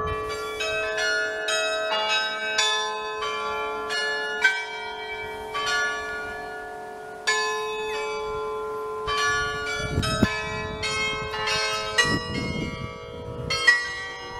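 Carillon bells in a clock tower playing a tune: many bell notes of different pitch struck one after another in quick succession, each left ringing, with a deep bell tone humming underneath.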